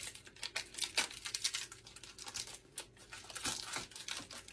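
Plastic packaging of catfish fillets crinkling in many quick, irregular crackles as it is handled and opened.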